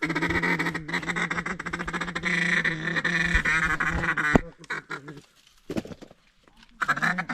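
Ducks quacking in a rapid, continuous run for about four seconds, then breaking off, with another short burst near the end.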